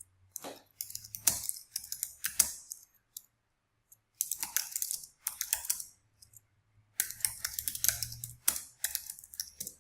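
Typing on a computer keyboard: three spells of quick key clicks with short pauses between them.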